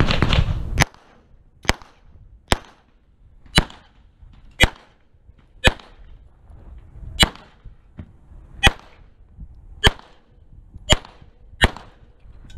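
Semi-automatic pistol fired about a dozen times, single shots roughly a second apart, each a sharp crack with a short ring. A loud rush of noise fills the first second before the first shot.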